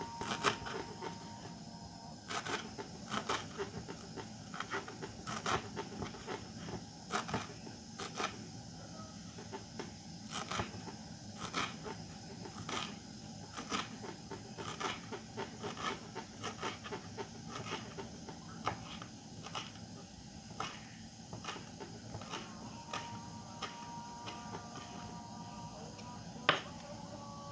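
A kitchen knife chopping fresh coriander on a wooden cutting board: irregular knocks of the blade on the board, about one or two a second, with one louder knock near the end.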